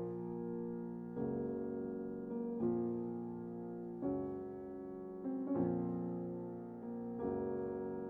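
Background music: soft piano chords, a new chord struck about every one and a half seconds and fading away before the next.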